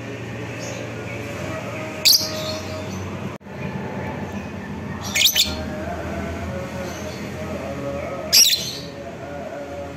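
Fischer's lovebird calling: loud, shrill chirps about two, five and eight seconds in, over a steady background hum.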